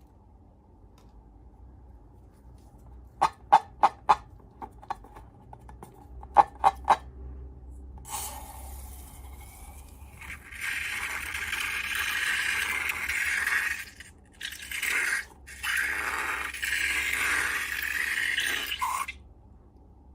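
Slime-making handling sounds: a handful of sharp clicks in two quick clusters, then long stretches of scraping and rattling with brief pauses.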